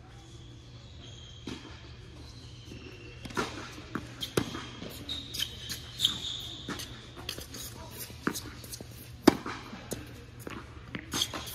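Tennis balls bouncing and being struck with racquets on an indoor hard court, a run of sharp knocks with the loudest about nine seconds in, mixed with brief high squeaks of tennis shoes on the court surface.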